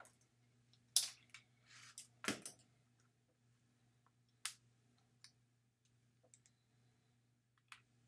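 A new USB cable and its packaging being unwrapped and handled: scattered clicks and rustles, with a sharp crackle about a second in and a heavier knock a little after two seconds. A faint steady low hum runs underneath.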